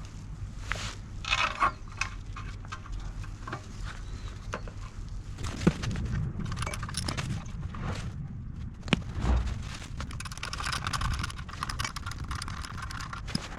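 Metal tools and parts clinking and knocking as they are handled, with short rustles and a few sharper knocks, over a steady low hum.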